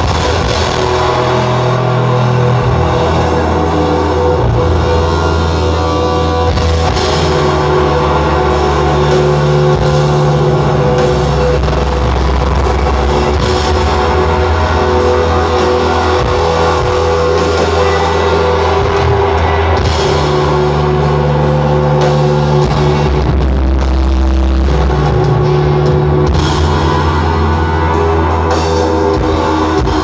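Live rock band playing loud: sustained electric guitars over held bass notes that shift every few seconds, with drums, heard from within the audience.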